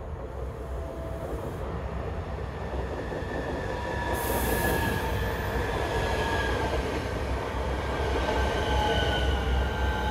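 Øresundståg electric multiple unit running along the platform at close range. A low rumble of the wheels grows louder, with several high whines and squeals that glide slowly down in pitch. There is a short hiss about four seconds in.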